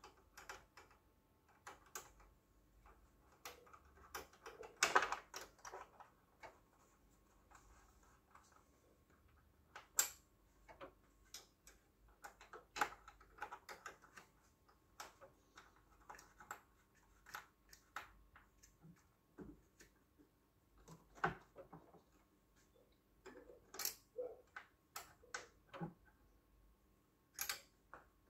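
Irregular light clicks and knocks of small hard parts and tools being handled, with a brief cluster of louder knocks about five seconds in.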